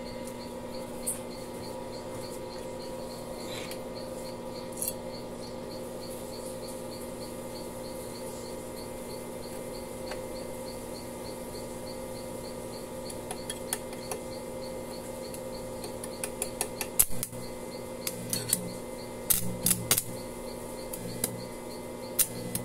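Steady hum under scattered sharp clicks and short crackles that begin about two-thirds of the way in, as a stick-welding electrode is tapped and scratched against a motorcycle's steel footpeg bracket to strike the arc.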